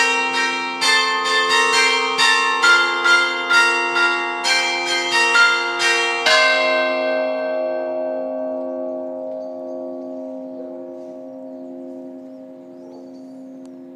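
Church bells being rung to call to Sunday Mass: several bells of different pitch struck in quick succession, about two strokes a second, the last about six seconds in. After that the bells' hum lingers and slowly dies away, wavering.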